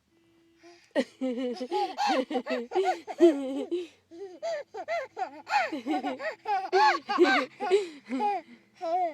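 A young child laughing hard in a long run of high-pitched, breathy bursts, starting about a second in.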